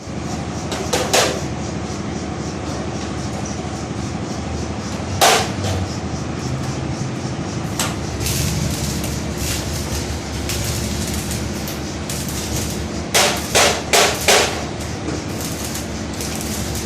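Blacksmith's hammer striking metal: single blows about a second in and about five seconds in, a lighter one near eight seconds, then a quick run of four blows. A steady mechanical running noise goes on underneath.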